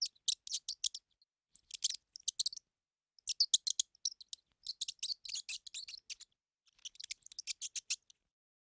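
Hamster sounds: quick runs of short, sharp, high-pitched clicks and crackles in bursts of a second or so, with short gaps between them, stopping near the end.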